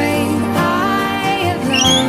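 Background music: an instrumental passage with sustained chords and no singing.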